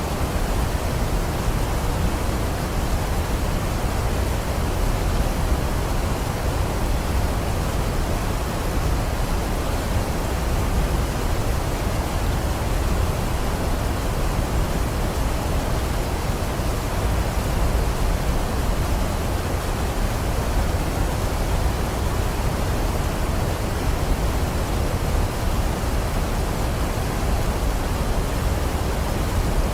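Waterfall's steady rush of falling water, a constant even noise heaviest in the low end.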